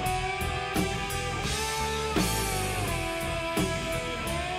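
Rock background music: guitar with held notes over a steady drum beat.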